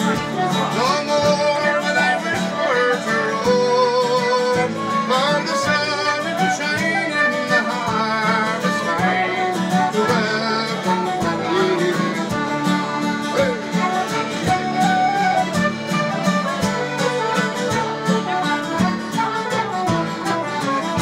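Irish traditional tune played on wooden flute and button accordion together, with acoustic guitar backing in a steady rhythm.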